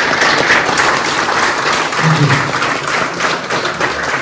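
Audience applauding: a roomful of people clapping steadily, beginning to die away near the end.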